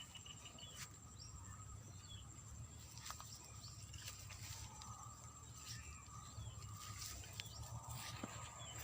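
Faint outdoor ambience of frogs and insects calling: a steady high insect tone with scattered small chirps and a few light clicks over a low rumble.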